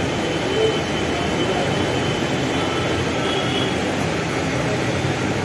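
Steady background rumble and hiss that does not rise or fall, with a faint high thin tone over it.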